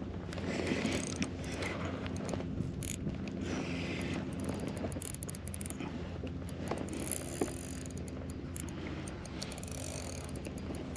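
Daiwa spinning reel being cranked, its gears whirring and clicking as a hooked porgy is reeled up, over a steady low hum.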